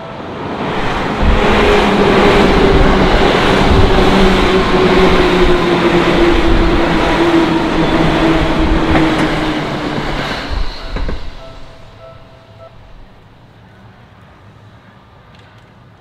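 A yellow Seibu electric commuter train passing over a level crossing: a loud rush of wheels and motors with low thuds and a whine that slowly falls in pitch, dying away about eleven seconds in. The crossing's warning bell rings under it and stops about a second later.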